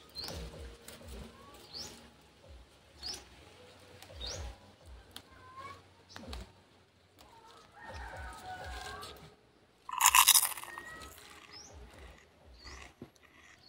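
A bird repeats a short rising chirp about every second and a half, over light rustling and handling of leaves. About ten seconds in comes a brief, loud, harsh squawk.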